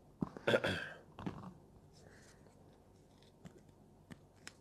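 Handling noises from unboxing headphone accessories: a short burst of card-and-packaging rustling in the first second or so, then a few light clicks and taps on the table near the end.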